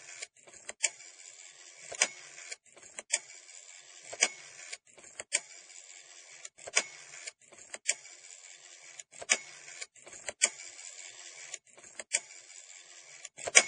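A steady mechanical whir with a sharp click about once a second, cutting out briefly now and then.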